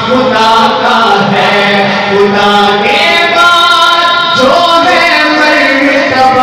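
Men singing a naat without instruments, amplified through microphones, in long held melodic notes that bend between pitches.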